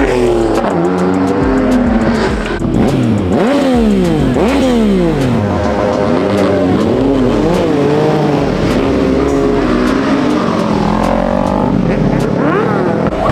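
Car engine revved hard and repeatedly, its pitch climbing and dropping in quick sweeps, then bouncing in shorter blips later on.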